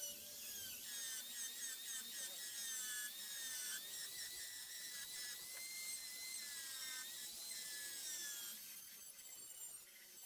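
High-speed rotary tool whining as its sanding drum grinds rust off a steel claw hammer head; the pitch wavers and dips as the drum bears on the metal. The sound changes near the end as the tool is worked with a cut-off disc.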